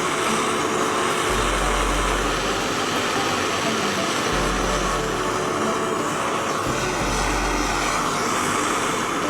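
Suzuki Wagon R's K6A three-cylinder engine running with a steady drone.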